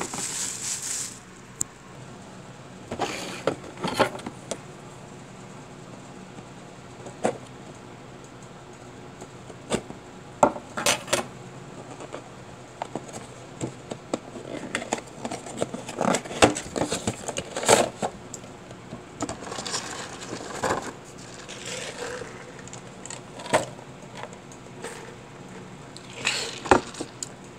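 Plastic action-figure boxes and packaging handled on a wooden table: irregular clicks, taps and knocks, some sharp, with stretches of quieter handling between them.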